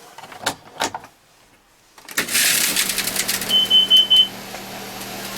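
A couple of sharp knocks, then about two seconds in a machine starts with a loud rush and settles into a steady low hum. Over it a Kidde carbon monoxide alarm gives four quick, high beeps, its warning pattern for carbon monoxide detected.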